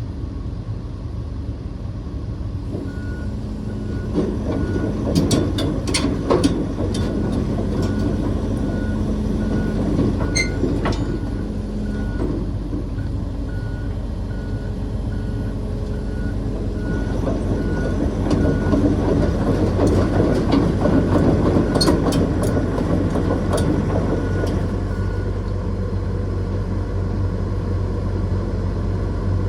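Diesel engine of a John Deere 135P excavator running steadily while its travel alarm beeps a little faster than once a second, stopping near the end. Several sharp metallic clanks, typical of steel tracks on a trailer deck, are heard a few seconds in, around the middle and later on.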